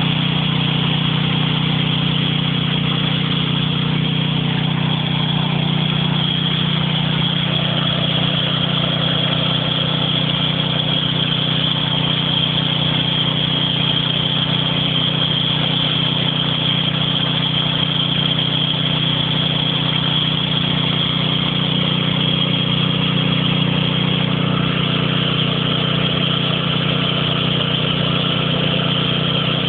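A strong jet of water gushing out of a blue plastic pipe and splashing onto bare ground, steady and unbroken, over the even hum of a motor running.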